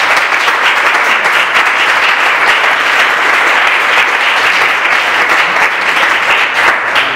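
An audience applauding after a talk: many people clapping together in a loud, dense, steady patter.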